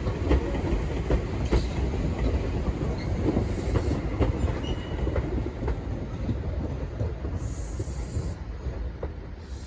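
Tobu Tojo Line electric commuter train running on the rails: a steady rumble with wheels clicking over rail joints. The noise slowly dies away over the last few seconds.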